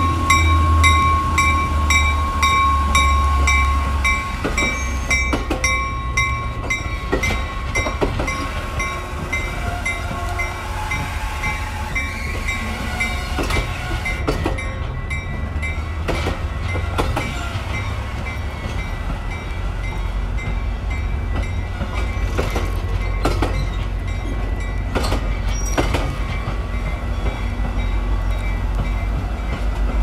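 Metra commuter train of bilevel gallery cars rolling past, with a low diesel rumble and the wheels clicking over rail joints. A warning bell rings rapidly and evenly, about two to three strikes a second, and fades out about six seconds in.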